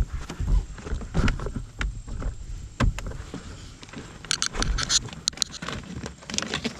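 Irregular knocks, rubs and clicks of an electrical wire being fed and pulled through holes in a car door's plastic and sheet metal, with a burst of sharp scraping clicks about four to five seconds in.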